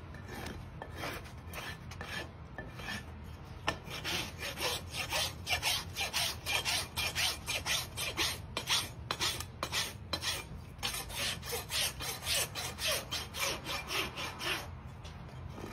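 Farrier's hoof rasp scraping across the horn of a horse's hoof in steady back-and-forth strokes, about two a second, easing off shortly before the end.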